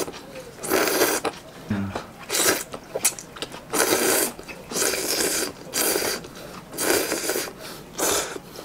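A person slurping instant ramen noodles hard and fast off chopsticks, in a string of about seven quick, loud slurps with short pauses between them.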